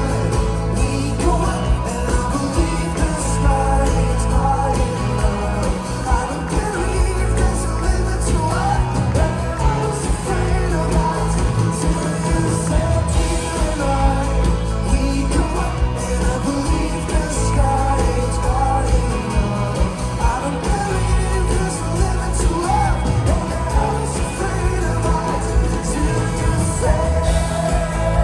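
Folk-rock band playing live, with singing over a full band and a strong, steady bass line, at an even, loud level.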